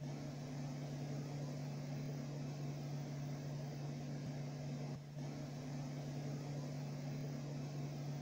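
A steady low machine hum with a hiss behind it, cutting out briefly about five seconds in.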